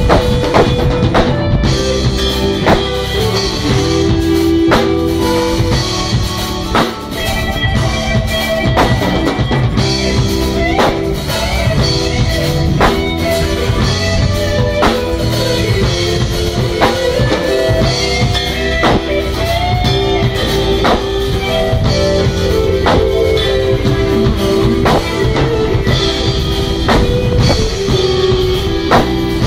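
Live band playing an instrumental jam: drum kit with a steady beat, keyboards carrying both chords and the bass line, guitar and hand percussion.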